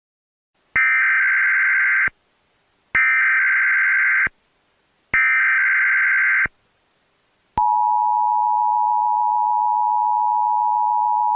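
Emergency Alert System tones: three identical bursts of the digital SAME header data, each about a second and a half long with short gaps between. About seven and a half seconds in, the steady two-tone EAS attention signal begins.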